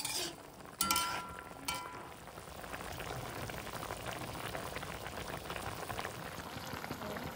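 Fish curry bubbling and crackling steadily in a pot, with a metal utensil clanking against the pot about a second in and ringing briefly.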